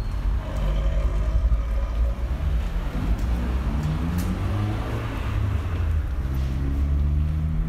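A vehicle engine running, a low rumble whose pitch rises through the middle and then holds steady near the end.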